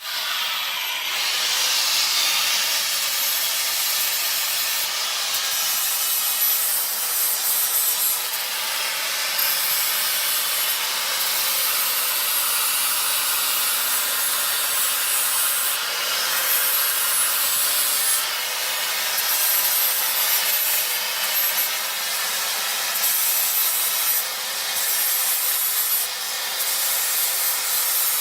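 Power grinder grinding down the end of a steel bolt to shorten it by about a quarter inch: a steady, harsh grinding with a thin high whine. It starts abruptly and dips slightly now and then as the work is eased off and pressed again.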